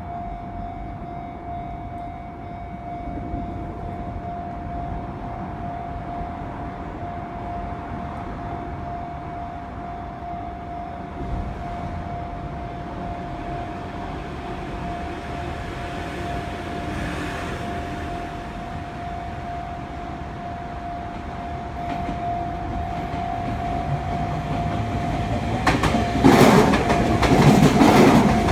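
Level-crossing alarm ringing as one steady repeating tone, then near the end a Sotetsu commuter train arrives and its wheels clatter loudly over the rail joints.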